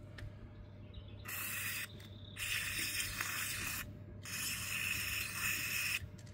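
WD-40 aerosol can spraying into a car's strut top-mount bearing in three bursts: a short one, then two longer ones of a second or two each.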